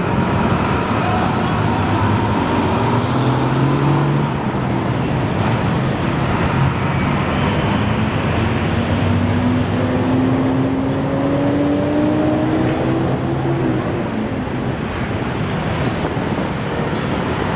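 Heavy city road traffic: a steady wash of bus and car engines and tyres. From about six seconds in, one engine's pitch rises slowly for several seconds as the vehicle accelerates.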